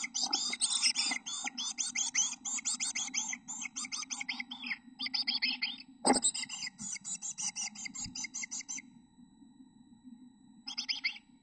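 Black-capped chickadee nestlings calling inside the nest box: a rapid run of short, high begging calls, about eight a second, that stops a little under two-thirds of the way through. About six seconds in there is a single knock, and a short burst of calls comes near the end.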